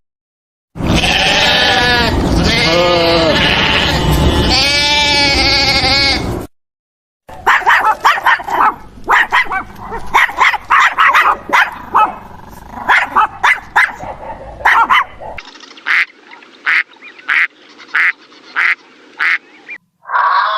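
A run of separate animal call recordings. It opens with about five seconds of wavering, pitched bleating. A burst of irregular short, sharp calls follows, then evenly spaced short calls at about two a second.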